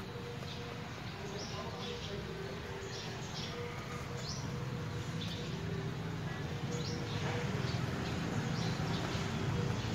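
Short, high bird chirps scattered throughout, over a low steady hum that grows louder in the second half.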